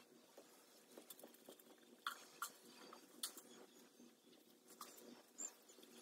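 Near silence with a few faint, scattered clicks and taps, the clearest about two and three seconds in.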